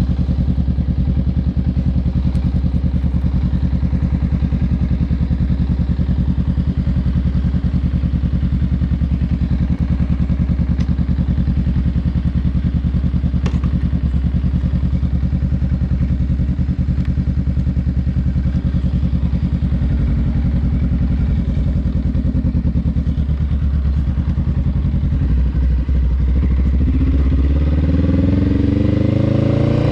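Honda Rebel 500 parallel-twin engine with a Vance & Hines exhaust, idling steadily, then revving up in rising sweeps over the last few seconds as the bike accelerates.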